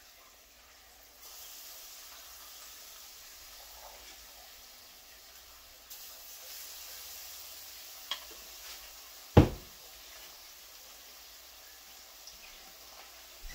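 Saltfish fritter batter spooned into hot oil: the oil sizzles, with the hiss rising about a second in and again near six seconds as each spoonful goes in. A sharp knock, the loudest sound, comes a little past the middle.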